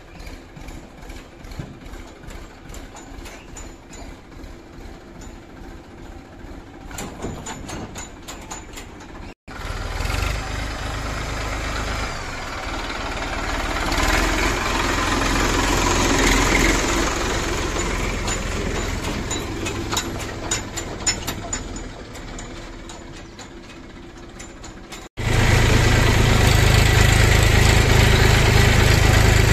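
Tractor diesel engine idling with an even pulsing. After a sudden cut, the Massey Ferguson tractor's engine runs louder and its level rises and falls. After a second sudden cut comes a loud, steady low engine rumble.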